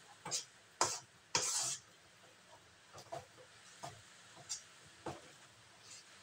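A metal spatula scraping and scooping thick, sticky biko rice cake out of a metal wok in a series of short scrapes. The loudest and longest scrape comes about one to two seconds in, with lighter taps and scrapes after it.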